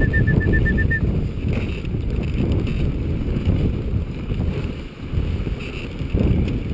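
Steady low rumble and hiss of a dog sled gliding over packed snow, with wind buffeting the chest-mounted microphone. In the first second a quick, even run of about a dozen short high peeps sounds over it.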